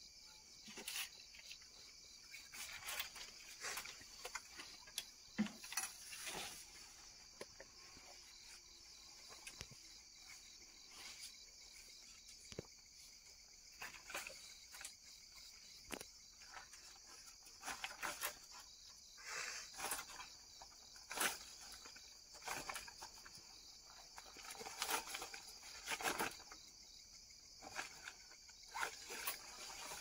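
Steady high-pitched chorus of insects, with scattered soft clicks and rustles throughout.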